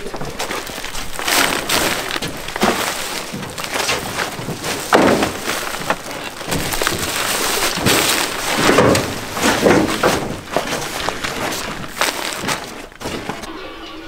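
Sacks being handled and loaded onto a pickup truck's bed: rustling of plastic and woven sacks, with irregular thuds and knocks.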